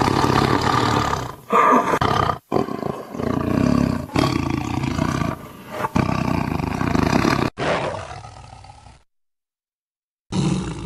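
Tiger roaring in a series of loud calls, each about one to one and a half seconds long with brief breaks between them. The calling drops out completely about nine seconds in and starts again near the end.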